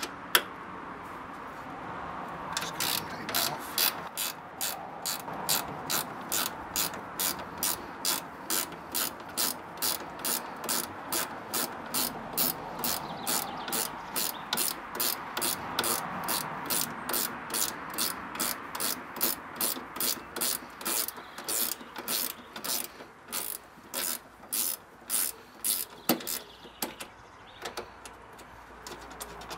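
Ratchet spanner undoing a 10 mm bolt, its pawl clicking in short, evenly spaced bursts, about two to three a second, with each return swing of the handle.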